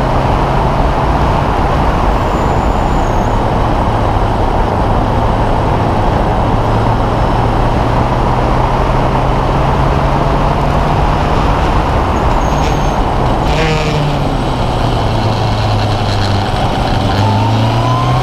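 Open-wheel race car's engine heard from onboard, running at a steady note under heavy wind and road noise. The note briefly changes about three-quarters of the way through, then climbs in pitch near the end as the car accelerates.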